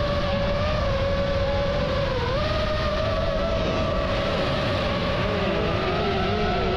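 FPV drone's motors and propellers whining with a steady high pitch that dips briefly about two seconds in and rises and falls with the throttle; a second, lower motor tone slides in near the end.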